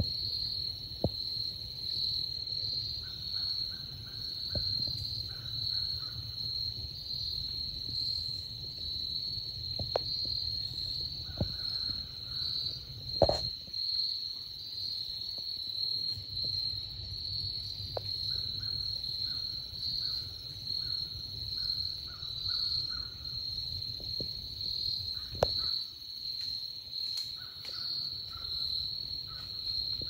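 Steady, high-pitched chorus of insects in woodland, with a second, lower insect call coming in repeated runs of short pulses. A few sharp snaps or ticks break through, the loudest about a third of the way in and another near the end.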